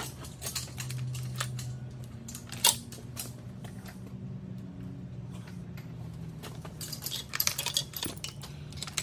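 Scattered metallic clinks and knocks from work on an engine hanging from a shop crane's chain, with one sharp knock about a third of the way in and a run of clinks near the end, over a steady low hum.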